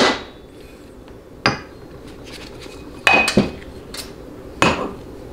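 Metal automatic-transmission parts (pistons, hubs and clutch drums) clanking against each other and the bench as they are set down and picked up: about six sharp metallic clinks. The loudest come right at the start and around three seconds in.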